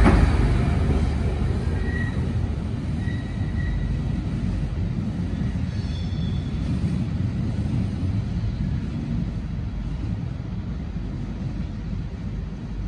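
DSB IC3 diesel multiple unit trains passing and pulling away along the platform. Their rumble falls off quickly and then holds steady in the distance. A few faint, brief high squeals come a few seconds in.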